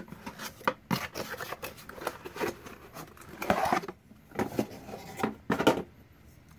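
Cardboard packaging being handled and opened and a plastic bowl slid out of it: a run of scrapes, rustles and sharp knocks that stops about six seconds in.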